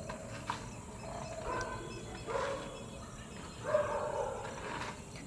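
Faint animal calls in the background: several drawn-out cries of steady pitch, each lasting under a second.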